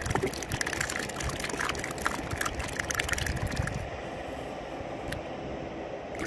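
Wind buffeting the microphone with water lapping below, and a rapid patter of small clicks through the first four seconds or so, then one sharp click about five seconds in.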